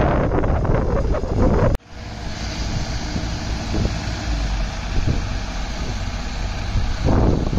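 Wind buffeting the microphone over distant engines, then, after a sudden cut, the diesel engine of a JCB tracked excavator running steadily as it digs soil, with a few faint knocks. Louder wind noise returns near the end.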